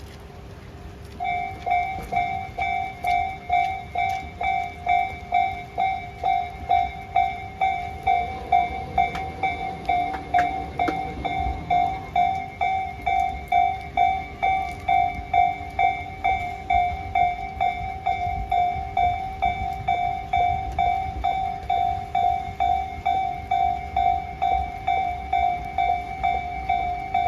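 Japanese railroad crossing warning bell starting up about a second in and ringing steadily about twice a second, the alarm for an approaching train.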